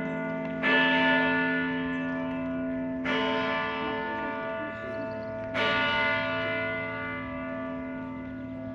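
A church tower bell strikes three times, about two and a half seconds apart. Each stroke rings on and fades slowly under the next.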